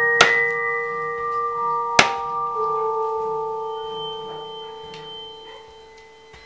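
A meat cleaver chops through raw chicken onto a wooden chopping block: two sharp chops about two seconds apart and a fainter knock later. Ringing, bell-like music notes hold and slowly fade behind them.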